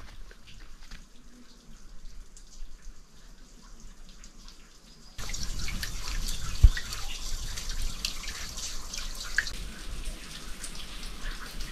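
Water dripping and trickling into a rock pool below a waterfall that has almost run dry. About five seconds in, the sound jumps abruptly louder to a hissing splash of running water with many scattered drips, and there is a single low thump a second or so later.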